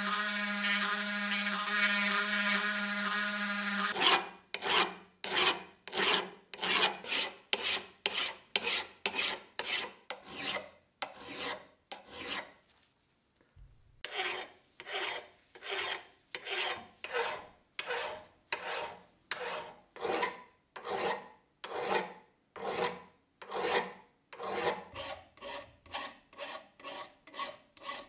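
Hand file scraping across a steel socket wrench to take off rust pitting and surface marks. It opens with a few seconds of steady, pitched scraping, then changes to separate back-and-forth file strokes, about two a second, with a short pause partway through.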